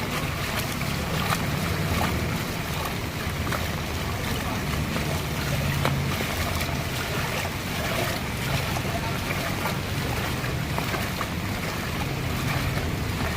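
Heavy rain falling steadily, a dense even hiss with many sharp drop ticks scattered through it.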